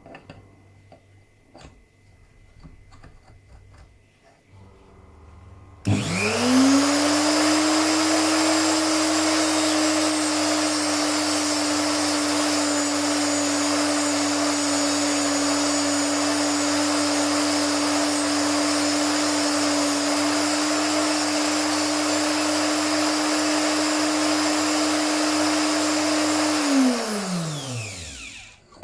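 Neutrix WAG40 TIG electrode grinder switched on about six seconds in. Its motor quickly spins up to a steady whine over a hiss and runs about twenty seconds while grinding the point of a tungsten electrode. Near the end it is switched off and its whine falls away as it spins down. A few faint clicks come before it starts.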